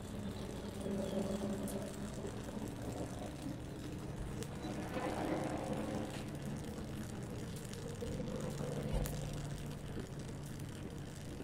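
Gas torch flame hissing steadily as an aluminium rod is melted into a joint on thin tubing, with an engine humming underneath, its pitch shifting slightly mid-way.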